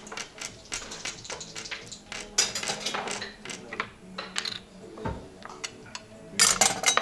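Wooden backgammon checkers clicking and clacking on the board as they are moved by hand, in a string of separate sharp clicks. A quick flurry of louder clicks comes near the end.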